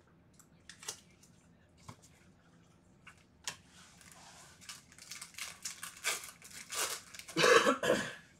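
A foil Bowman Chrome baseball card pack wrapper crinkling in gloved hands, with a few light clicks before, then tearing open in a loud crackle near the end.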